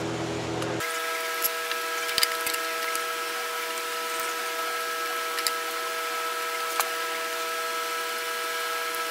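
Steady mechanical hum with several fixed tones, and a few light metallic clicks and taps as the thermostat housing bolts are started with a socket and extension.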